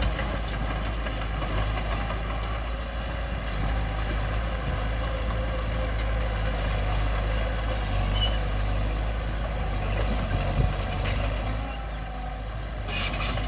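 Bulldozer's diesel engine running steadily at working revs, with a short burst of clatter near the end.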